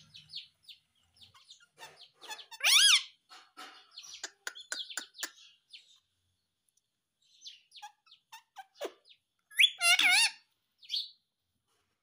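Indian ringneck parakeet calling and chattering: soft short clicks and chirps, with two loud arching calls, one about three seconds in and another around ten seconds.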